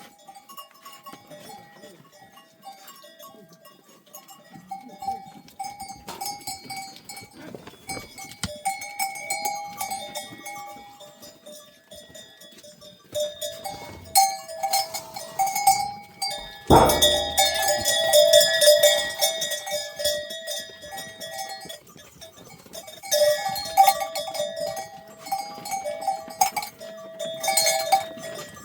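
Bells on a flock of sheep and goats clanking and ringing as the animals move about, with one sharp loud knock about two-thirds of the way through.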